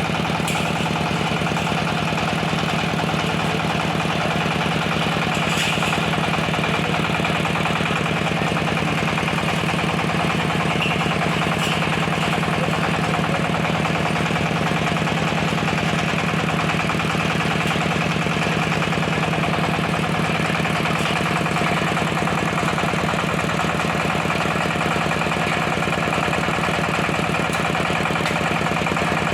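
Chainsaw running steadily at high revs without a break, as when cutting sengon wood into boards.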